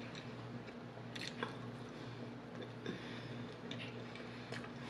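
Close-up mouth sounds of a person chewing a bite of calzone, with a few soft, scattered clicks over a steady low hum.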